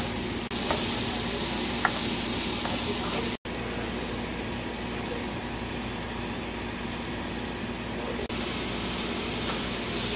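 Chopped onion and garlic sizzling in hot oil in a wok as they are stirred with a spatula, with a few sharp clicks of the spatula on the pan in the first two seconds. The sizzle breaks off briefly about a third of the way in and then carries on a little softer.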